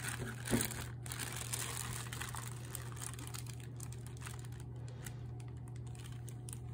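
Plastic bag crinkling as it is handled, busiest in the first couple of seconds and then dying away, over a steady low hum.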